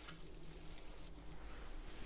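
Faint scattered light ticks of small tools working on a circuit board during resoldering, over a low steady electrical hum.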